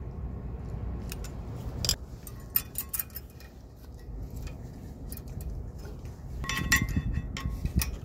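Metallic clicks and clinks of pliers squeezing the tabs of steel rear brake pad clips and working them into place: a few single clicks about two to three seconds in, then a quick run of ringing clinks near the end, over a low steady background rumble.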